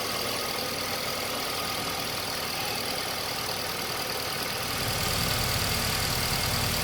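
Car engine idling steadily, with a deeper low sound coming up and growing a little louder near the end.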